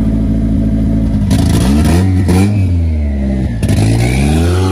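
Turbocharged Honda B20 inline-four in a 1995 Civic coupe idling, then revved twice, the pitch climbing and dropping back each time.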